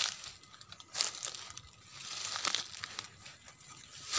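Footsteps crunching through dry leaf litter and undergrowth, a crackly crunch about once a second.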